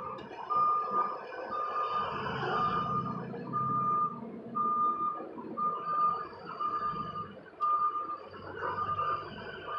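Vehicle backup alarm beeping steadily, about one beep a second, over a low rumble.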